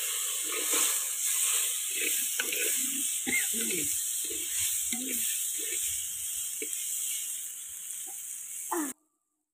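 Eel meat frying in hot oil in a clay pot, a steady sizzle, with a metal ladle scraping and knocking against the pot as it is stirred. The sound cuts off abruptly near the end.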